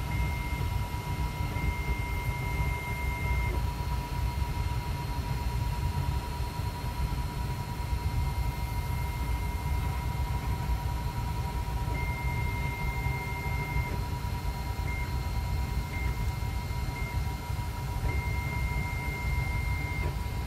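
FlashForge Creator Pro 3D printer running a dry print with no filament loaded: a steady low hum and a steady tone, with a higher stepper-motor whine that comes and goes in stretches as the print head moves.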